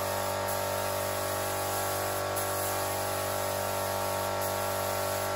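Gravity-feed air spray gun hissing steadily as it lays a coat of paint on a car fender, with steady held tones underneath.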